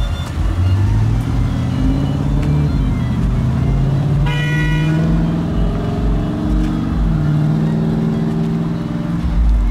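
Bass-heavy music with a steady low thumping beat and sliding bass notes. A brief higher note sounds about four seconds in.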